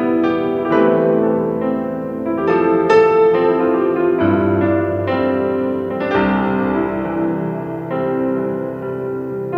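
Background piano music: notes struck and left to ring, in a slow run of chords.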